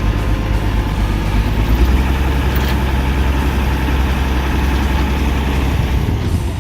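A vehicle engine running with a steady low drone, starting suddenly.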